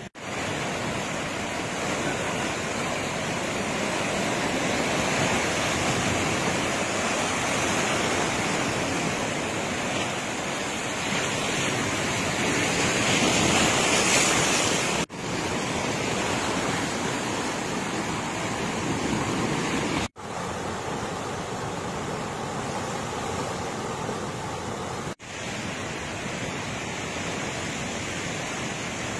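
Rough sea surf breaking and washing up the shore in a steady rushing wash, churned up by the storm. The sound cuts out briefly three times.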